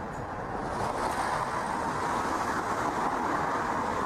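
Jet roar of a four-engine Airbus A340-600, its Rolls-Royce Trent 500 engines at takeoff power as it climbs away. It is a steady rushing noise that swells slightly about a second in.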